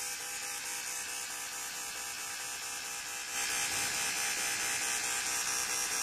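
Steady electric buzz from an aluminum welding machine, getting a little louder about three seconds in.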